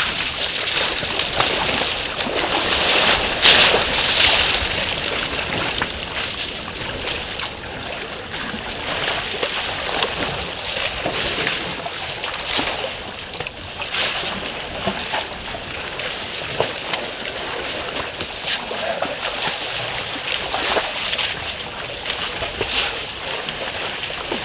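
African elephants wading and soaking in a shallow waterhole, water splashing and sloshing around them. It is loudest about three to four seconds in.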